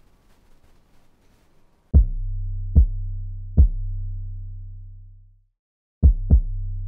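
Electronic music with a drum machine. After a faint, quiet first two seconds, deep kick-drum hits come in about every 0.8 s over a low held bass. The bass fades and drops out for a moment, then two quick kicks bring the beat back near the end.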